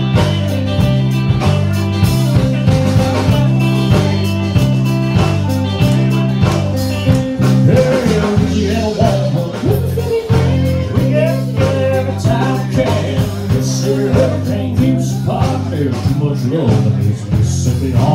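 Live country band playing: strummed acoustic guitar, electric guitar and upright bass, with a steady stepping bass line. A melodic lead with sliding notes comes in about halfway through.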